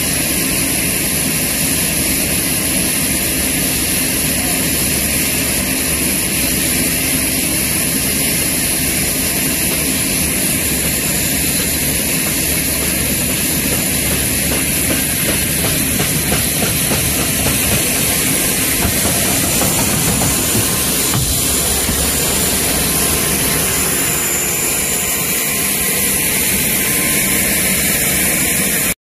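C-130H Hercules turbine engines running steadily during a ground offload: a loud, even rush with a high whine, heard from inside the cargo hold. It stops abruptly just before the end.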